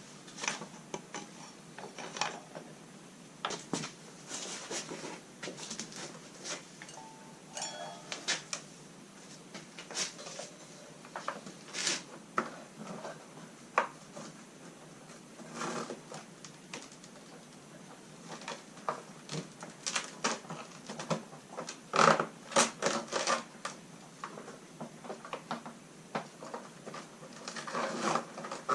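Irregular metal clinks, clicks and clatter from hand work on a dirt bike's rear wheel: the chain coming off the sprocket and the axle, spacers and tools being handled, with a few brief ringing metal tones.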